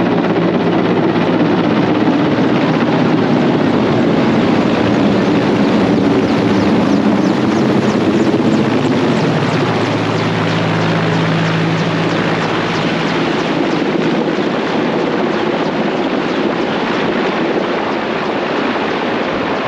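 Large helicopter flying low overhead, its rotor and engines loud and steady, easing off slightly near the end as it moves away.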